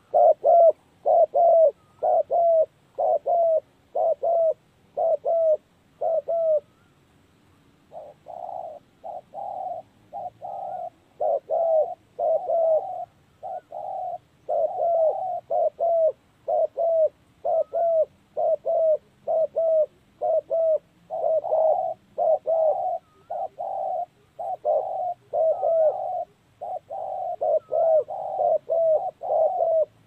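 Spotted doves cooing in short repeated phrases, one after another. The cooing breaks off for about a second and a half some six seconds in, then resumes and runs on without a break.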